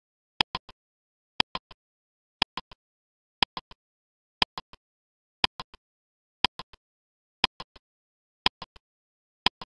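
Countdown-timer tick sound effect: one sharp tick each second, each followed by one or two fainter clicks, marking the seconds running out on a quiz question.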